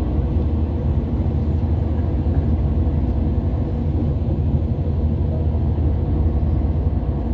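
Steady low rumble of road and engine noise heard inside a moving vehicle's cabin at expressway speed.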